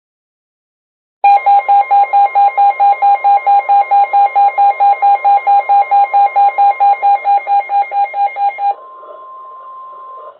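Weather radio alert: a loud beeping at about five beeps a second over the steady 1050 Hz NOAA Weather Radio warning alarm tone. The beeping stops near the end and the steady tone carries on alone a moment longer before cutting off. It announces an incoming special marine warning.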